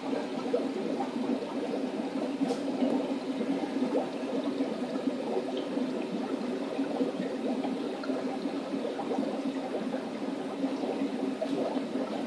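Aquarium filtration in a room of fish tanks: steady bubbling and gurgling of water from air-driven sponge filters and pipework.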